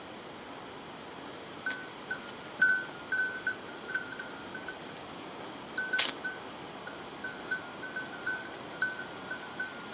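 Bear bell jingling in irregular, repeated rings as the wearer walks, starting about two seconds in, over a steady background hiss.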